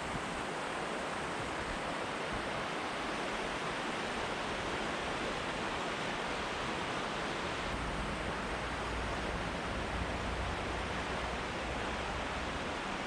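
Steady rushing of Willow Falls on the Willow River, heard from an overlook above the gorge. A low rumble joins about eight seconds in.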